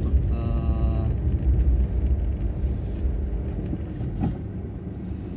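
Low, steady car engine and road rumble inside a car's cabin in slow traffic. A short, flat-pitched horn sounds about half a second in.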